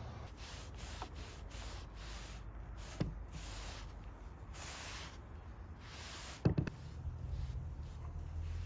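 Quick, repeated swishing strokes as whitewash is worked onto a cypress board, with two sharp knocks, about 3 and 6.5 seconds in, over a steady low hum.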